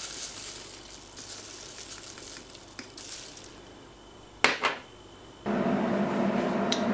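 Sugar sprinkled onto chopped leeks in a large stainless steel pot, a faint hiss of falling granules. About four and a half seconds in, two sharp clinks as the small glass bowl is set down. Near the end, a steady hum with a sizzle starts from the induction hob heating the pot.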